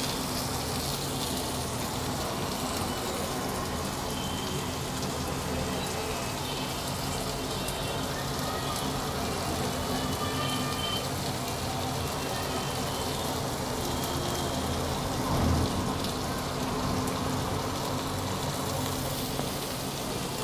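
Oil sizzling steadily in a frying pan over a low gas flame, as crumbled boiled potato and herbs cook in it.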